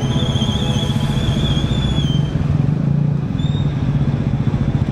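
Motorcycle engines running in slow traffic with a steady, pulsing low rumble. A high, wavering whistle-like tone sounds over it for the first two seconds, and a shorter one comes about three and a half seconds in.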